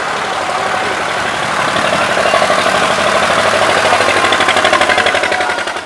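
Zetor 25 tractor's two-cylinder diesel engine running hard as the tractor drives close past, its even firing pulses growing louder from about two seconds in.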